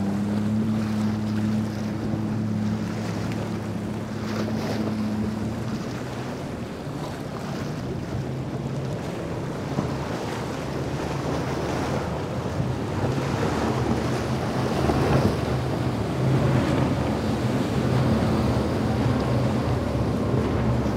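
Several outboard engines on a center-console fishing boat running at speed, a steady drone under the rushing hiss of spray and wash off the hull, which grows louder past the middle. Wind buffets the microphone.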